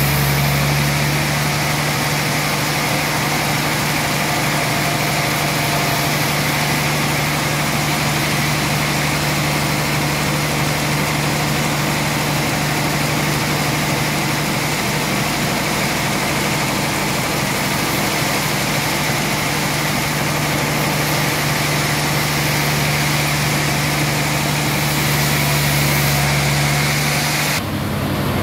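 Band sawmill running and sawing through a suar (rain tree) log: a steady machine hum under a constant hiss of the blade in the wood. The sound changes abruptly near the end.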